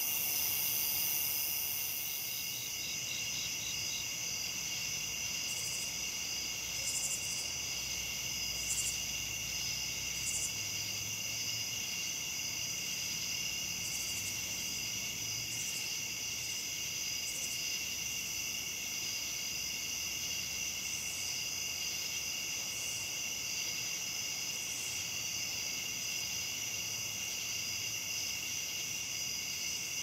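Night insect chorus of crickets and katydids: steady layered high trilling, with short higher-pitched calls breaking in every second or two.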